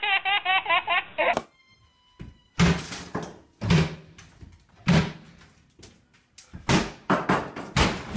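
A baby's rapid squealing laugh for about a second, then a cut to a run of heavy wooden thuds and bangs with room echo as old kitchen cabinets are pulled and knocked apart, about six blows over five seconds.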